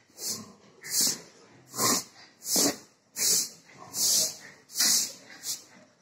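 Pig breathing heavily in loud, breathy huffs, about one every three-quarters of a second, steady and rhythmic.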